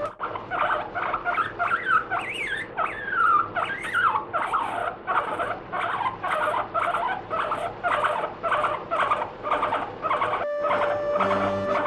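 Abyssinian guinea pig squealing in a rapid string of short, high calls, about three to four a second, with a few falling glides early in the string. The squealing is a protest at being brushed.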